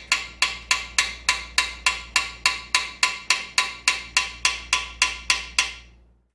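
Gentle, even hammer taps on a steel driver seating a bronze lifter bushing into a cast-iron lifter bore of a Chrysler small-block, about four taps a second, each with a short metallic ring. The taps grow fainter and fade out near the end.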